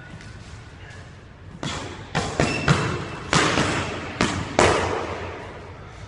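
Boxing gloves landing punches in a quick flurry: about seven sharp thuds over three seconds, each echoing briefly off the hard walls of a squash court.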